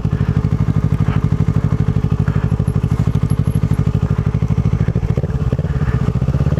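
Kawasaki Ninja motorcycle engine running at low, steady revs with an even, rapid pulsing exhaust beat.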